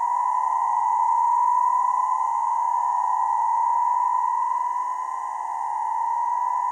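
Electroacoustic music: a steady, high-pitched electronic tone held throughout, with fainter sweeps that keep rising in pitch, one after another, around it.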